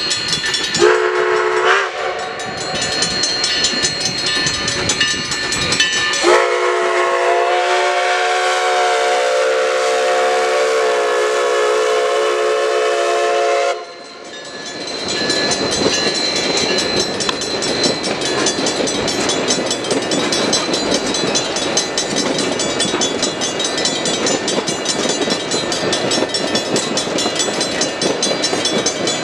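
Steam locomotive whistle: a short chord about a second in, then a long, steady multi-note blast from about 6 to 14 seconds that cuts off sharply. Grade-crossing bells ring throughout, and after the whistle the locomotive and passenger coaches roll through the crossing.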